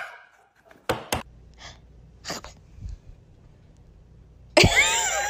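A couple of faint clicks and short breathy snorts. Then, about four and a half seconds in, a dog starts a loud howl whose pitch wavers up and down.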